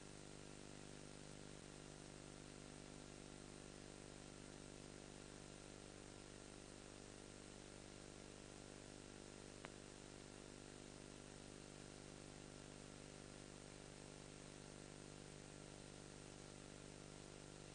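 Near silence: a steady low hum and hiss, with one faint click a little over halfway through.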